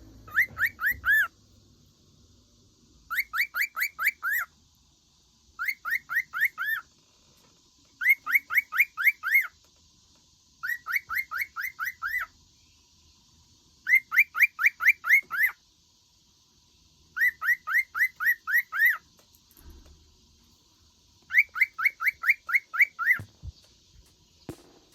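Cockatiel chirping in repeated bursts. Each burst is a quick run of six to eight rising chirps lasting about a second and a half, and the bursts come about every three seconds, eight times over.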